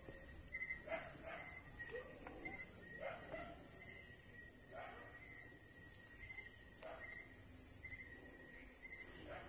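Night chorus of crickets: a steady, rapidly pulsing high trill, with a fainter chirping note repeating every second or so.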